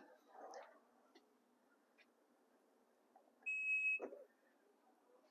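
Single steady electronic beep of about half a second from a 2022 Mazda CX-9's power liftgate, the warning that the liftgate is about to power-close, followed at once by a soft knock.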